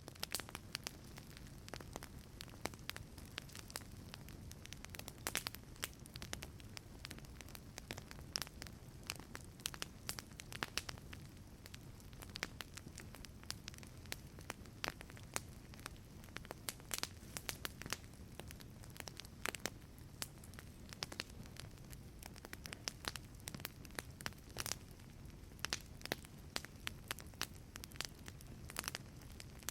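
Wood fire crackling in a fireplace: irregular sharp pops and snaps over a low steady rumble of the flames.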